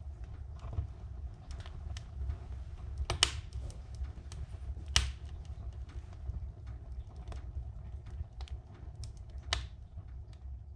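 Wood fire crackling in a cast-iron wood-burning stove behind its closed glass door: irregular small snaps and three louder pops, over a low steady rumble.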